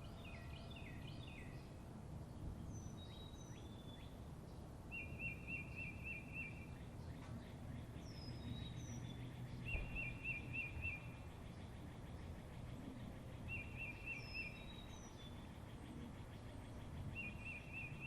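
Songbirds singing outdoors. One bird repeats a short, rapid trill about every four seconds, among higher slurred whistles and chirps from others, over a steady low background rumble.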